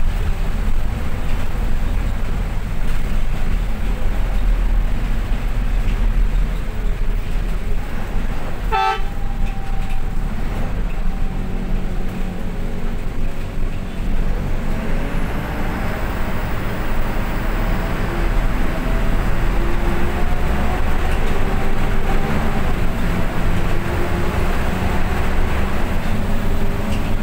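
Road vehicle on the move: a steady low engine and road rumble, with one short horn toot about nine seconds in. In the second half an engine note wavers up and down in pitch.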